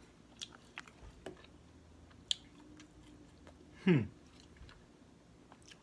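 Close-up mouth sounds of a man chewing White Castle slider burgers, with scattered soft wet clicks. About four seconds in comes one short voiced sound from him that drops quickly in pitch, the loudest moment.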